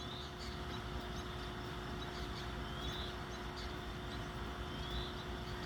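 Steady low outdoor rumble with a faint steady hum, and a few faint short high chirps from small birds, likely the starlings, about a second and a half in, three seconds in and near the end.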